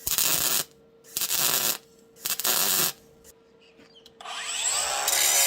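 Three short, harsh metalworking bursts on a steel sawmill frame, each about half a second long, over a faint steady hum. Background music fades in near the end.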